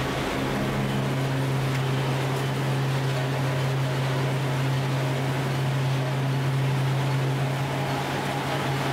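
Steady low hum of forging-shop machinery running, a mechanical power press and its drive along with large industrial fans, holding an even level throughout.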